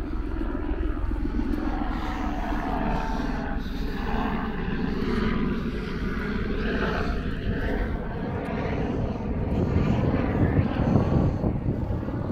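Aircraft engines droning steadily overhead, growing louder about ten seconds in.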